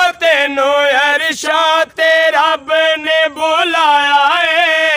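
Two men singing a Punjabi naat without accompaniment, drawing out long ornamented notes in phrases broken by short breaths.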